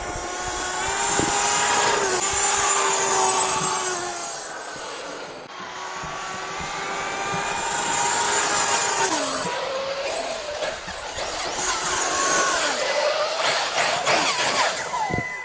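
Losi 5TE 3.0 large-scale electric RC truck driving: its brushless motor whines, rising and falling in pitch as it speeds up and eases off several times, over a steady rush of tyre and drivetrain noise.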